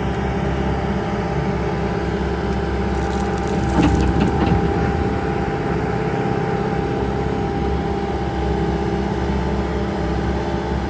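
Bobcat S850 skid steer loader's diesel engine running steadily, with a few short clanks about four seconds in.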